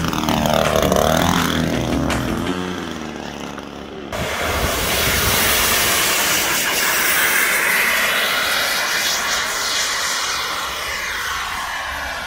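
Radio-controlled model airplanes in flight. The motor note of a low-passing model sweeps as it goes by. After a sudden change about four seconds in, another model's motor runs steadily and loudly.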